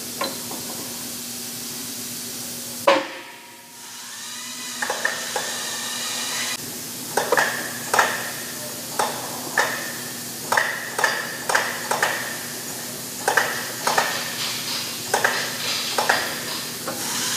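Sharp metal-on-metal clinks, each with a short ring, coming irregularly about once a second from tools and fittings as a C-130J propeller is worked onto its shaft. A single sharp knock about three seconds in, and a steady low hum underneath.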